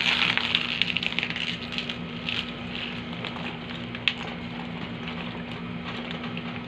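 Gloved hands pressing and smoothing a Kabiven three-chamber IV nutrition bag, its plastic crinkling and rustling as the mixed contents are spread through it. The crinkling is loudest in the first second or two and then eases, with one sharp click about four seconds in.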